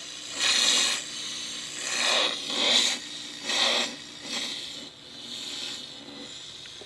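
Electromagnetic field of a computer power supply made audible by a homemade magnetic-field detector: a harsh, rasping buzz that rises and falls in several surges as the detector moves near the unit.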